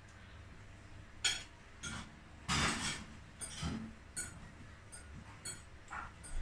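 Spoon and fork clinking and scraping against a plate during a meal: several short, sharp clinks spread unevenly, with one louder, longer noise about two and a half seconds in.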